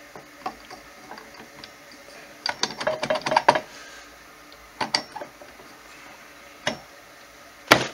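Metal clinks and knocks of Polaris 350 two-stroke engine case halves being worked together over the crankshaft. A quick run of clinks comes about two and a half seconds in, then a few single knocks, with the loudest near the end as the half seats.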